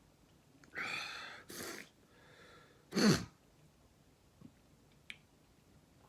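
A man's heavy, breathy gasps, then a single sharp hiccup about three seconds in, the loudest sound, with a falling pitch. The hiccups are set off by eating a superhot Carolina Reaper sauce.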